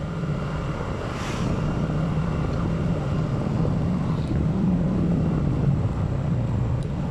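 Engine drone and wind noise from a vehicle on the move, the low drone swelling slightly about halfway through, with wind rushing over the microphone.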